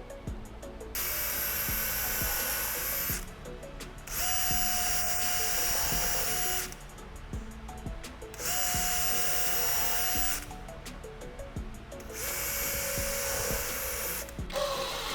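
A small electric power tool running in four bursts of about two seconds each, with a steady whine while it runs and short pauses between.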